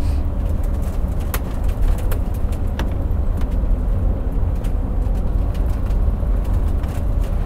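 Inside a moving coach bus: a steady low rumble from the engine and road, with scattered light rattles and clicks.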